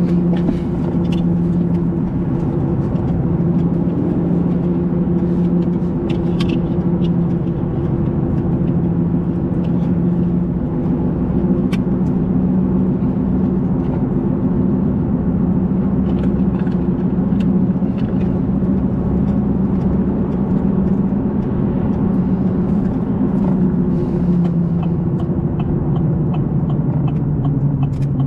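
Motor vehicle driving along: a steady engine drone with road rumble.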